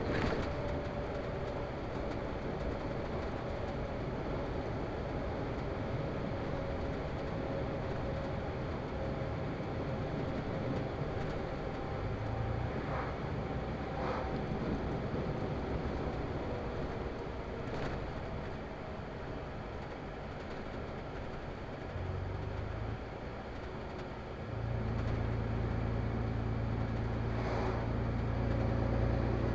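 Engine and road noise inside a moving vehicle's cab, a steady drone while driving at road speed. From about 25 seconds in, a low engine hum becomes clearly louder.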